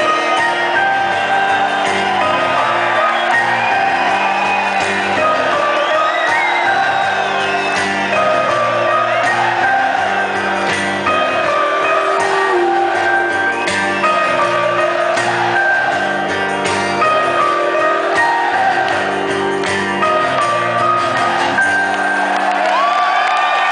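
Live band playing with guitar and singing, with shouts and whoops from the crowd over the music.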